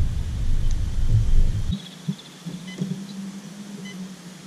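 Wind buffeting the microphone makes a loud, low, rough rumble that cuts off abruptly just under two seconds in. A faint steady hum and a few small clicks remain.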